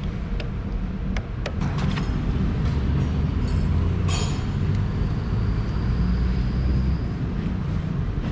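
A steady low engine rumble that swells from about two seconds in until about seven seconds, with a few light metallic clicks in the first two seconds.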